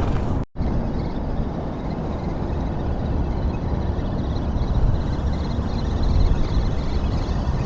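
Wind buffeting the microphone: a steady, low, fluttering rumble that drops out for an instant about half a second in.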